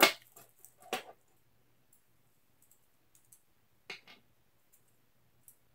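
Small Beyblade parts being handled and set down on a wooden tabletop: a sharp click at the start, another about a second later, a quick pair of clicks near four seconds in, and faint ticks between.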